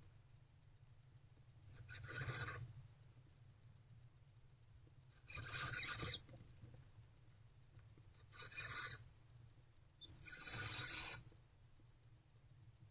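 Barn owlets giving harsh hissing begging calls, four rasping hisses of about a second each, roughly three seconds apart.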